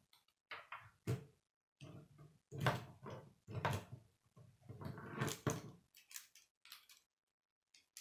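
Plastic K'nex rods and connectors clacking and rattling as they are handled and fitted together, in irregular bursts with short gaps between them.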